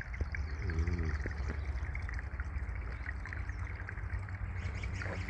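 Steady running, trickling water, with a short voice-like sound about a second in.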